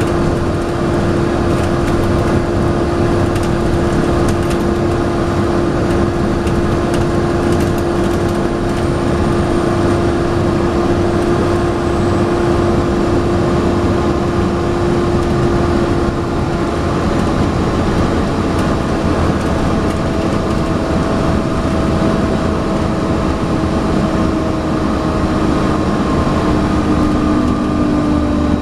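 Volvo B7TL double-decker bus heard from on board, its engine and drivetrain running at a steady pace under a loud, steady whining hum: the 'hoover' sound of the engine cooling fan. The pitch sinks slowly over the last few seconds.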